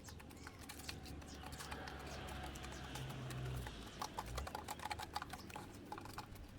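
Chickens pecking at scattered grain and bread: a run of quick, irregular clicky taps like typing, with a low hum under them for the first few seconds.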